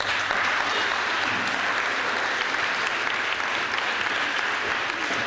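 Audience applauding steadily, starting suddenly as a reading ends.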